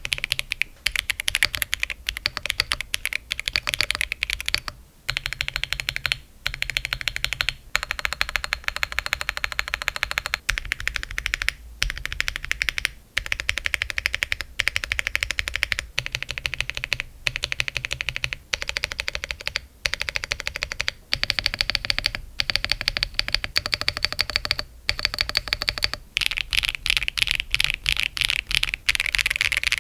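Fast, continuous typing on a Monsgeek M1W v3 mechanical keyboard with a PC plate, no foam and OEM keycaps, alternating stretches of Akko Cilantro and MMD Princess Tactile v2 tactile switches. Brief pauses separate the stretches, and the click sound changes slightly from one stretch to the next.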